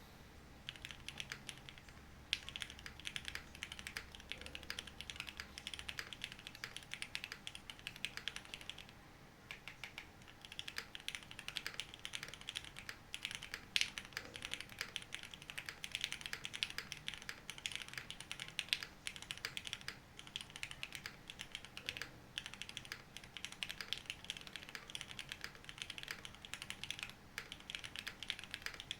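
Typing on a Cycle8 mechanical keyboard fitted with frankenswitches: a fast, continuous run of keystroke clacks, with a brief pause about nine seconds in.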